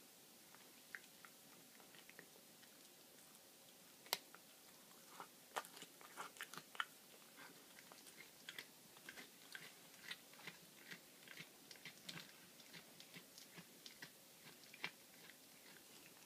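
A cat chewing a baby rabbit and crunching its bones: faint, irregular sharp crunches, sparse at first, then several a second from about four seconds in.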